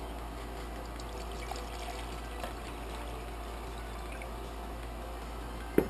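Water being poured steadily into a titanium Snow Peak pot, with a short click near the end.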